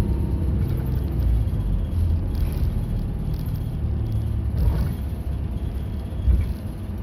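Route bus running, heard from inside the passenger cabin: a steady low engine and road rumble, with a short low thump about six seconds in.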